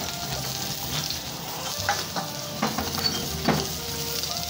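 Lobster tail sizzling as it pan-fries in oil in a stainless steel frying pan, with a few sharp clicks of metal tongs against the pan in the second half, the loudest about three and a half seconds in.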